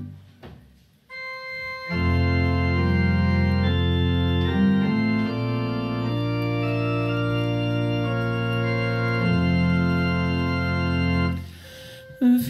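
Organ playing a slow run of sustained chords. It comes in about two seconds in and stops shortly before the end, followed by a brief sharp thump.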